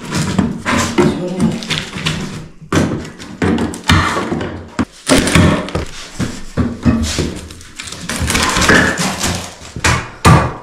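Irregular knocks and thuds of the wooden parts of a disassembled wardrobe being handled and moved.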